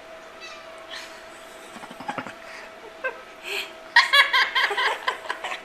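Pet parrot imitating laughter: a few soft chirps, then a quick run of ha-ha-ha bursts about four seconds in.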